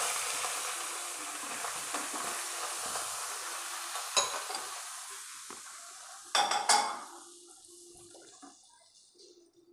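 Hot desi ghee sizzling in a kadhai as wheat flour is poured in and stirred with a spatula; the sizzle dies away over the last few seconds. A sharp utensil clink about four seconds in and a louder cluster of clinks a little before seven seconds.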